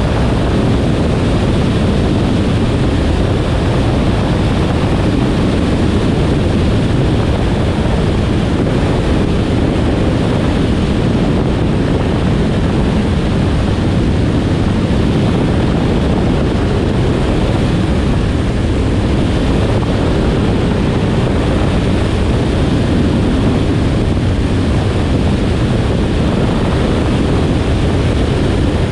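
Steady low rush of a Cessna 172 in flight on approach to landing: engine and propeller noise mixed with heavy wind buffeting on an outside-mounted microphone. It stays level throughout, with no change in engine note.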